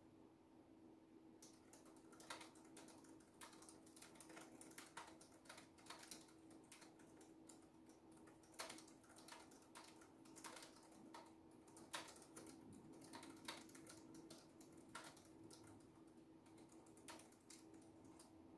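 Laptop keyboard being typed on: quiet, irregular runs of keystroke clicks that start about a second and a half in, over a faint steady hum.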